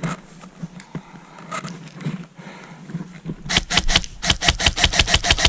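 Airsoft gun firing a rapid string of sharp shots, about seven a second, starting about three and a half seconds in after a few scattered clicks.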